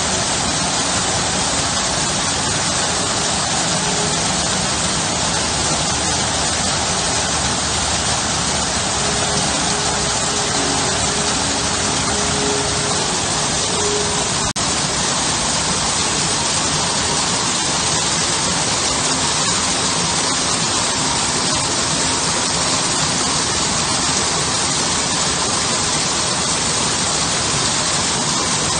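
Small garden waterfalls splashing steadily into a stone-lined pool: a continuous, even rush of water, with a momentary drop-out about halfway through.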